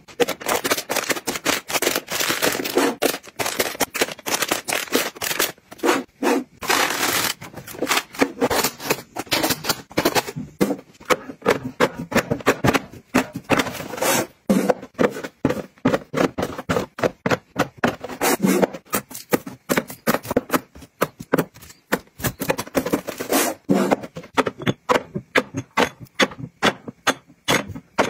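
Unopened aluminium drink cans, and later small glass bottles, set one by one into a plastic storage bin: a busy run of quick clacks, knocks and clinks, with plastic scraping as things are pushed into place.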